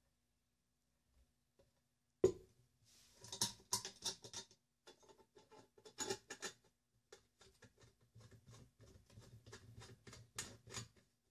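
Clicks, knocks and scraping from hands working the metal swing arm of a homemade angle-grinder stand on its wooden base, with the grinder switched off. There is a sharp knock about two seconds in, then an irregular run of lighter clicks and rattles.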